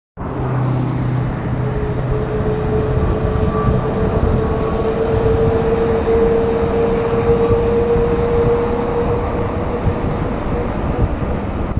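Wind noise on an action camera's microphone while riding a mountain bike along a city road, with a steady hum that edges slightly up in pitch. It starts suddenly.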